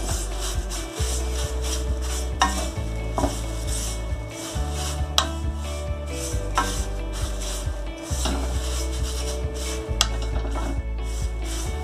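Wooden spatula stirring dry thin rice flakes in a metal kadai as they roast: a dry rustling scrape, with sharper scrapes against the pan every second or two. Background music with a steady low bass plays underneath.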